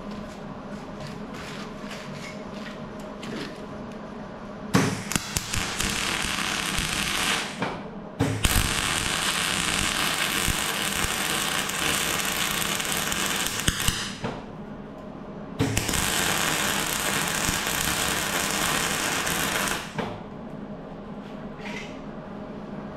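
MIG welding on the steel chassis: three runs of a few seconds each, crackling and spitting, with faint clicks between. The steel is coated with primer, which is burning in the weld and which the welder calls terrible stuff.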